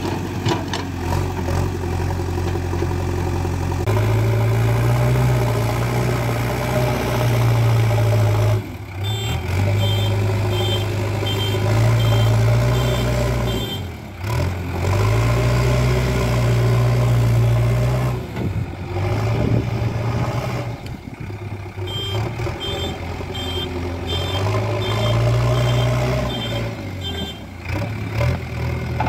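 JCB 3DX backhoe loader's diesel engine running under load, its revs rising and falling again and again as the machine works. Its reversing alarm beeps about twice a second in two spells, one in the middle and one near the end, as the machine backs up.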